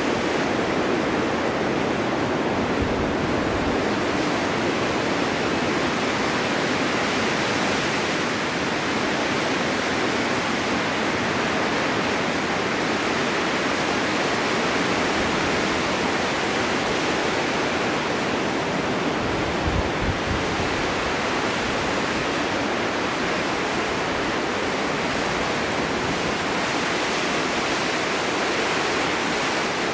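Steady snowstorm wind, an even rushing hiss that swells and eases slowly, with a brief low rumble about three seconds in and another around twenty seconds.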